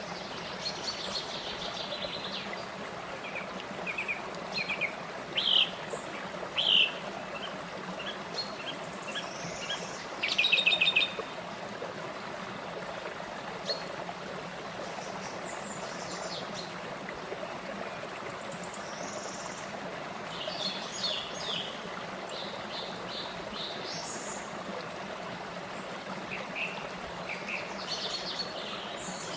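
Small forest stream running over rock ledges and little cascades, a steady rush of water. Songbirds chirp and call on and off above it, loudest in a rapid trill about ten seconds in.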